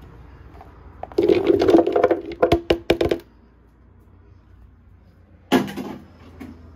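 Baby carrots tipped from a plastic bowl into a Blendtec blender jar: a clattering rush about a second in, ending in several sharp separate knocks. A single knock follows near the end.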